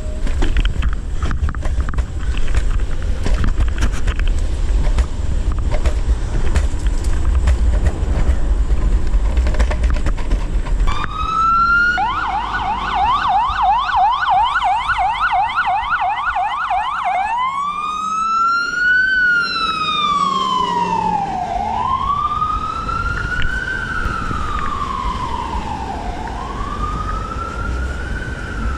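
Wind buffeting the microphone and a low rumble while riding an electric kick scooter. About eleven seconds in, an emergency vehicle siren starts: a fast yelp for about five seconds, then a slow rising and falling wail.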